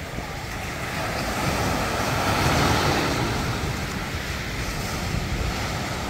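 Ocean surf washing on the beach, a wave swelling louder to a peak about halfway through and then easing off, with wind buffeting the microphone.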